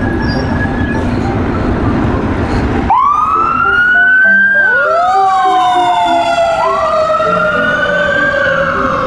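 Fire engine on an emergency run: a loud rushing rumble for about three seconds, then its sirens start wailing. Two overlapping wails each rise quickly and fall away slowly.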